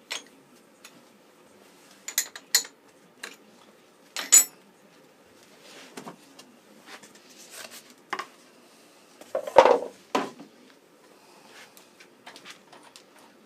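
Scattered metallic clinks and knocks of a milling vise and its hold-down hardware being handled and shifted on the mill's steel T-slot table, with a louder clatter of several knocks about nine and a half seconds in.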